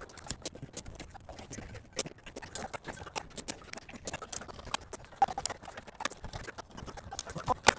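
Gloved hands handling stiff insulated wires inside a sheet-metal AC disconnect box: irregular light clicks, taps and rustles as the wires are bent and pushed into place.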